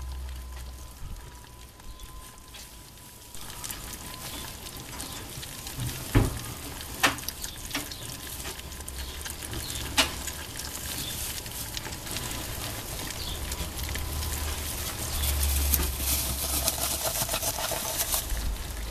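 Four-week-old ferret kits chewing and tearing at a dead rabbit: many small mouths make a constant dense crackling, with a few sharp clicks along the way.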